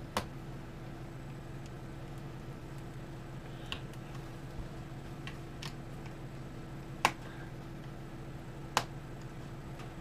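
Sharp, scattered clicks and ticks, about six of them with the loudest two near seven and nine seconds in, as small mini Torx screws are turned out of a laptop's bottom cover with a precision screwdriver. Underneath runs a steady low hum.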